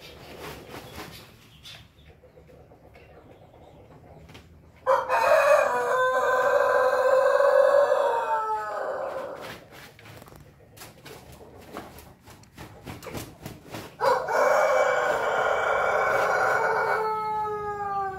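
Pelung rooster crowing twice, each crow a long drawn-out call held steady for several seconds before its pitch falls away at the end. The first starts about five seconds in; the second starts about fourteen seconds in. Quieter scattered clicks fall in the gap between them.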